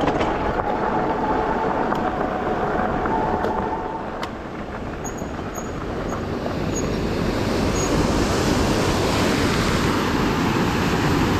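Electric bike riding on a gravel towpath: a steady motor whine over tyre and wind noise. After a sudden break about four seconds in, rushing water pours through a canal lock's spillway, growing louder toward the end.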